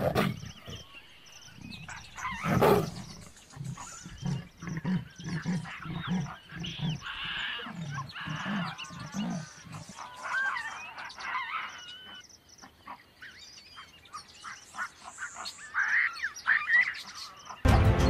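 Wild field sound of a big cat growling, with a loud snarl about three seconds in and low pulsing growls over the next several seconds, while birds chirp through the middle and near the end.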